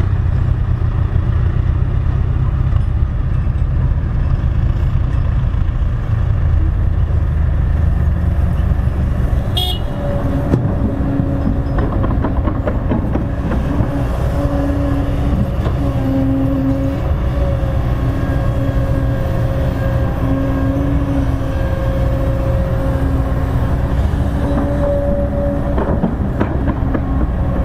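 Kobelco crawler excavator's diesel engine working under load as it digs soil and loads a dump truck, a steady low rumble. A sharp knock about ten seconds in, after which a whining tone comes and goes over the engine.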